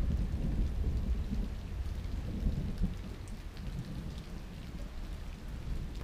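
Thunder rumbling low, slowly fading over the first few seconds, with steady rain falling.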